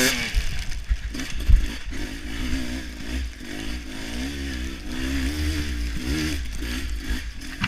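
Dirt-bike engine being ridden on a trail, its revs rising and falling over and over. Constant low rumble underneath, with a sharp knock about a second and a half in.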